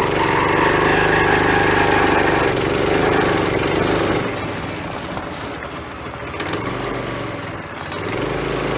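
Go-kart's small gas engine running as the kart is driven: steady at first, easing off from about halfway through, then picking up again near the end.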